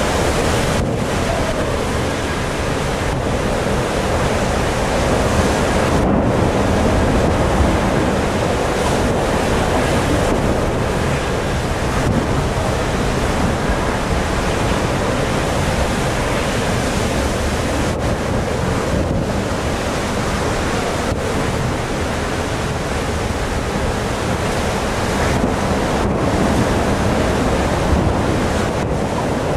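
Gale-force wind buffeting the microphone over the rush of a storm-tossed sea: a loud, steady noise with no engine or voice standing out.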